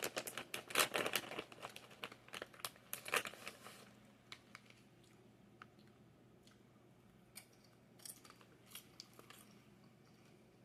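A person chewing crunchy chocolate-coated popcorn close to the microphone: a dense run of crunches for the first few seconds, then only scattered crunches.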